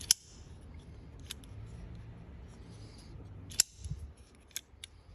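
SOG SEAL XR folding knife being flipped open and closed, its blade and XR lock snapping with sharp metallic clicks several times, the loudest right at the start and about three and a half seconds in.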